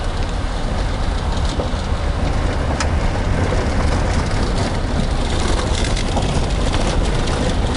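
Car engine and road noise: a steady low rumble, with a few faint clicks.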